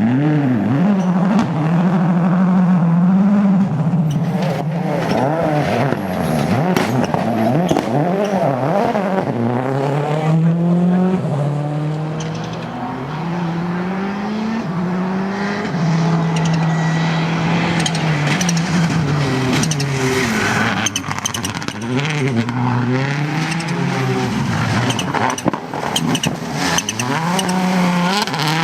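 Rally car engine working hard through a stage. The note climbs in repeated rising steps and drops back at each gear change, then falls away and builds again.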